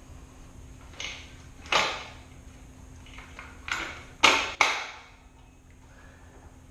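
Tools and metal parts clanking during work on a dirt bike: about five sharp knocks, each ringing briefly, the loudest two close together about four seconds in.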